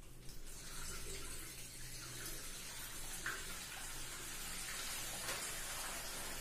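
Bathroom tap running steadily, filling a large rubber balloon fitted over its spout with water.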